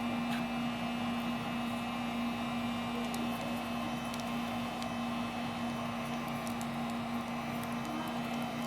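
Steady electrical or mechanical hum with a constant low tone and background hiss, with a few faint small clicks.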